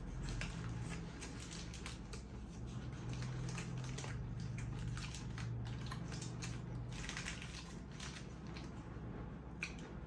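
Close-miked chewing of a burger, with many small, irregular mouth clicks and crackles over a low steady hum.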